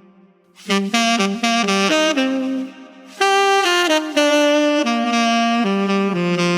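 Saxophone playing a melodic phrase: a quick run of short notes, a brief pause, then several longer held notes.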